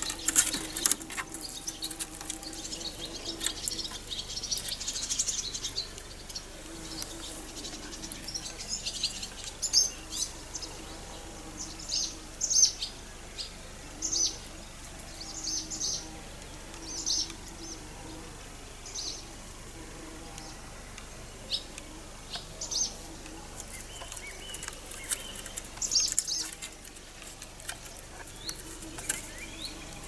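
Small songbirds chirping: short high calls repeated every second or so, thinning out toward the end, over a quiet outdoor background. A few sharp clicks sound in the first second.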